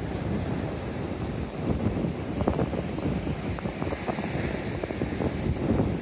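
Sea waves breaking and washing up the beach, with wind buffeting the microphone in irregular gusts.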